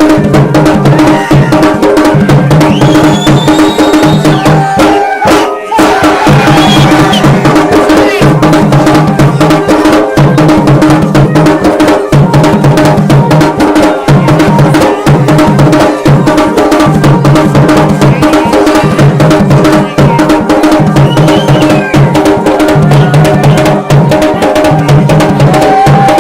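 Garhwali dhol and damau drums playing a dense, fast rhythm, with a steady held tone underneath and a low pulse swelling about every two seconds.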